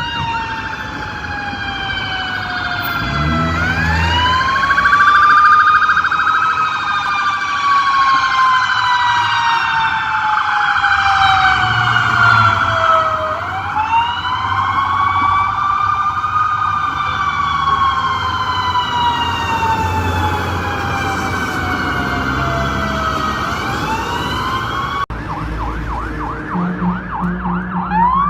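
Warning siren wailing in several tones at once: each cycle rises over a couple of seconds and falls slowly over about seven, repeating about every ten seconds. Near the end it cuts to a faster, rapidly pulsing alarm tone.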